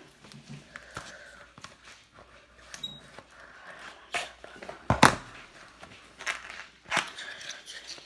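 Packaging being handled and torn open: scattered crinkles, rustles and short tears, with the loudest sharp crackle about five seconds in.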